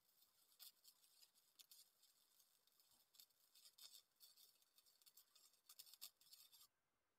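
Faint, uneven crackling and hiss of a Lincoln 100-amp MIG welder running flux-core wire, the arc sputtering with irregular pops. It stops suddenly near the end.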